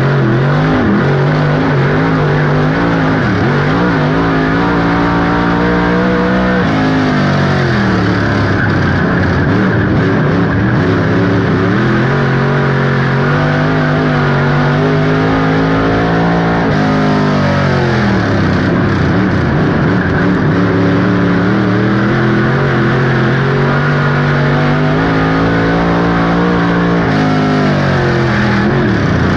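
Dirt-track race car engine heard from inside the car, its pitch climbing as it pulls down a straight and dropping sharply as the driver lifts for a turn, about every ten seconds: three laps' worth of rise and fall.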